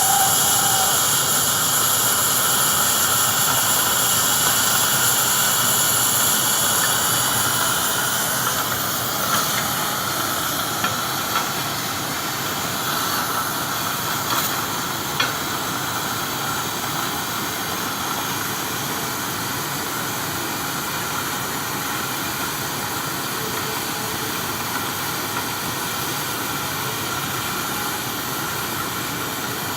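Steady hiss of a pipe cutting machine's torch cutting through a high-pressure pipe, easing slightly about eight seconds in, with a few faint clicks.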